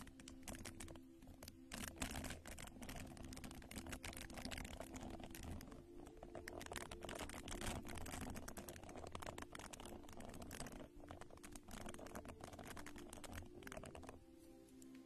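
Dense, close crackling and scratching as a soft round pad is rubbed over the microphone, in the ASMR manner. It stops about fourteen seconds in.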